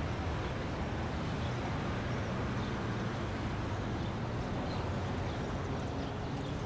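A steady, low engine rumble, with faint high chirps now and then.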